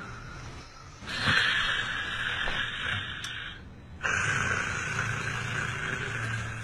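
A person snoring loudly: one long noisy breath of about three seconds, then a second one starting right after it about four seconds in.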